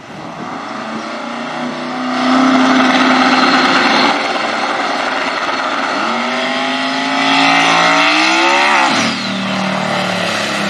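Twin-turbo V8 drag-racing engine of about 2500 hp, revved up and held loud and steady on the starting line, then launching: its pitch climbs steeply for about three seconds and drops abruptly near the end.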